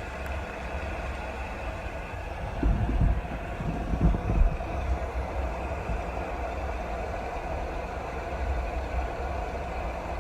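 Steady rain noise heard as a muffled, low rumbling wash, with a few heavier low thumps about three and four seconds in.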